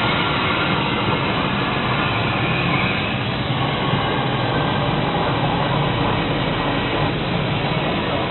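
CNC plasma cutter torch cutting metal: a loud, steady rushing noise with a low hum underneath.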